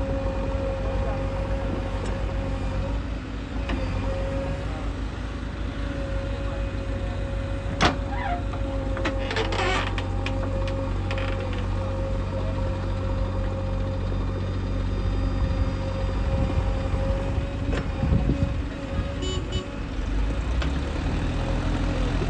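Diesel engines of a JCB 3DX backhoe loader and tractors running steadily, with a held whine over the engine note. A sharp clank comes about eight seconds in, and a few more knocks and scrapes follow a couple of seconds later.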